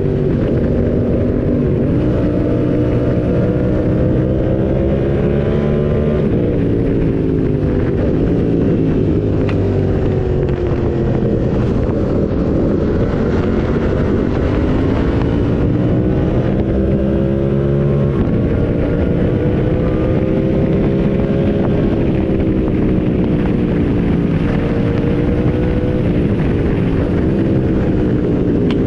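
Motorcycle engine running steadily under way, its revs rising and falling in slow swells several times.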